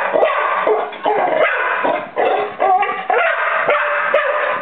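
A Lab–beagle mix dog barking and yipping in a rapid, unbroken string of short calls, excited at blue crabs in front of it.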